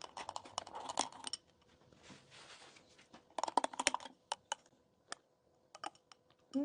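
Quick runs of small crisp clicks and crackles, one in the first second and a half and another around three and a half seconds in, with scattered single clicks between and after.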